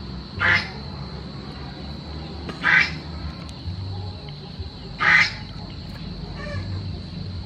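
Three loud, short animal calls about two and a half seconds apart, over a steady high-pitched whine.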